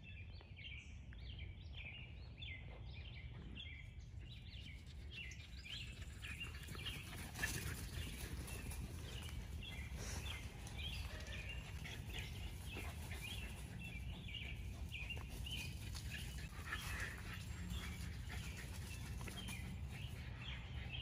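Small birds chirping and singing in the surrounding trees, many short repeated notes, over a low steady outdoor rumble.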